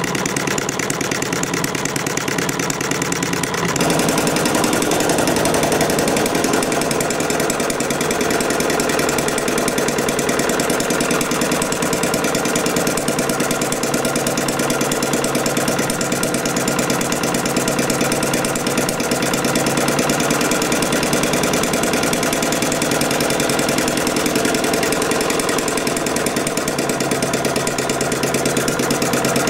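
Small model Atkinson cycle gas engine running steadily on spark ignition, a fast even firing beat with mechanical clatter from its valves and linkage. It grows a little louder about four seconds in.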